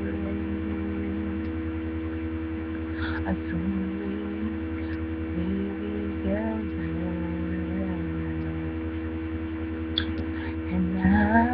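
A woman's voice singing softly in slow, long held notes, louder near the end, over a loud steady electrical mains hum.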